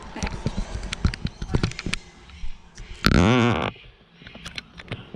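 Handling noise as a camera is moved and set up: a string of clicks and knocks, with a loud, brief pitched sound of wavering pitch about three seconds in.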